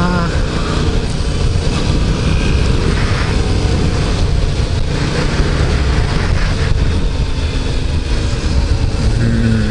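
Yamaha MT-07's 689 cc parallel-twin engine and exhaust running steadily while the bike is ridden, heard from on board.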